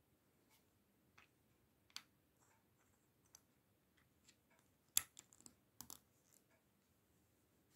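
Plastic LEGO bricks clicking and tapping as they are picked up and pressed together, faint scattered clicks with the sharpest one and a quick cluster about five seconds in.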